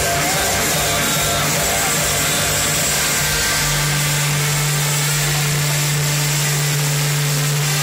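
Loud live hardstyle and rock music over a festival sound system, heavily distorted: a steady low droning note over a dense hiss. The note grows louder about three and a half seconds in and drops away at the very end.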